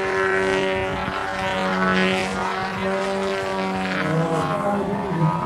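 Radio-controlled aerobatic model airplane in flight, its engine and propeller running with a steady drone; the pitch wavers up and down about four seconds in as the plane manoeuvres.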